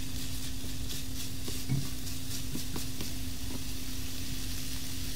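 Ground pork filling with diced vegetables sizzling steadily in a frying pan over high heat while a silicone spatula stirs it, with a few light scrapes and knocks against the pan in the first few seconds, one louder than the rest.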